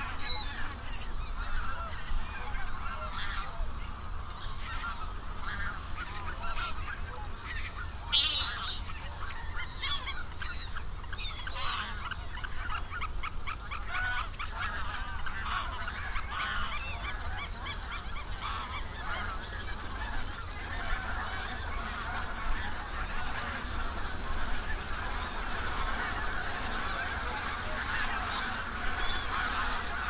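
A large flock of birds calling continuously in a dense, overlapping chorus.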